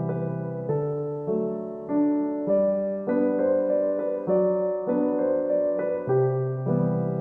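Background music: keyboard or piano chords in a slow, even rhythm, a new chord struck about every half second and fading away.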